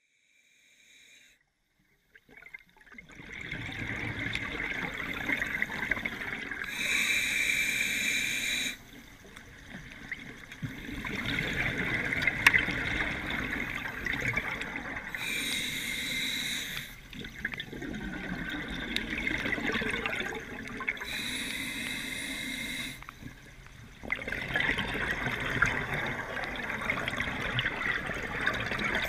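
Underwater sound of scuba regulator breathing: bursts of exhaled bubbles every six to eight seconds over steady water noise, starting about three seconds in.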